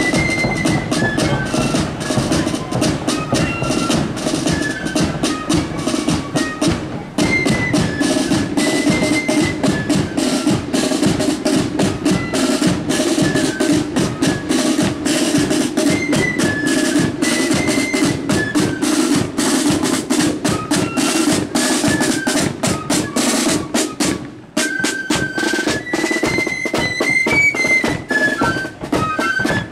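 Marching flute band playing a tune: a line of flutes carries the melody over rolling side drums and a bass drum. The playing breaks off briefly about 24 seconds in, then the flutes come back in on a held note.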